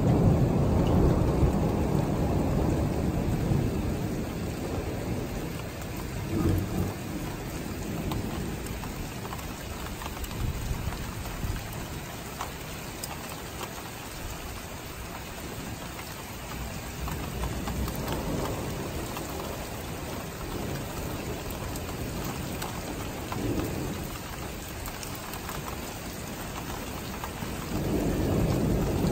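Steady rain falling through a thunderstorm, with thunder rolling. A low rumble dies away over the first few seconds, and another starts to build near the end.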